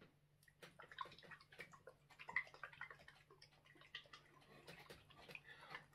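Faint liquid sloshing and small irregular clicks of a hot sauce bottle being shaken to mix the oil that has separated on top.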